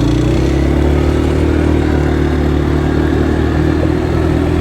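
ATV-type off-road vehicle's engine running steadily under throttle as it drives off, a steady even drone.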